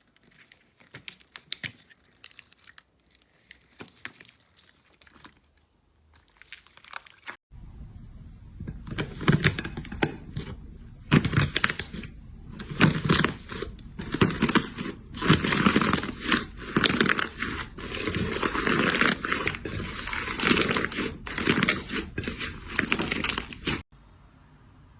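Slime being squeezed and worked by hand, making crackling, crinkling and crunching sounds. Faint and sparse at first, it cuts about seven seconds in to a much louder clip with dense crunching and popping, which stops abruptly just before the end.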